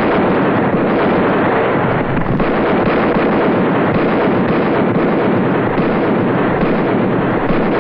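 Hoofbeats of several horses galloping on dry ground, a dense continuous clatter.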